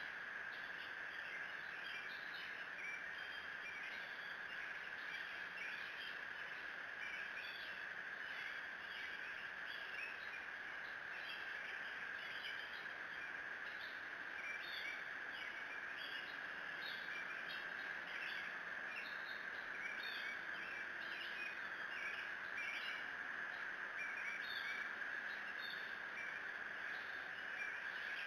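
Woodland songbirds calling and singing, many short overlapping chirps, over a steady high-pitched hum.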